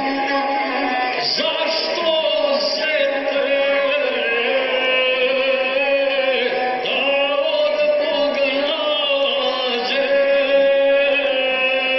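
Gusle, the single-string bowed folk fiddle, played with a man singing along in a chanting epic style, the voice gliding over the instrument's steady line. Heard as a playback through a laptop's small speaker, with the top end cut off.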